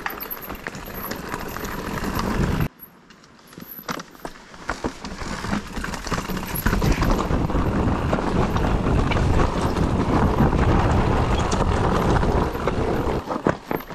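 Electric mountain bike clattering down a rocky singletrack: tyres crunching over stones, chain and frame knocking, over a steady low rumble. The noise drops out abruptly about three seconds in, then builds back up and is loudest through the second half.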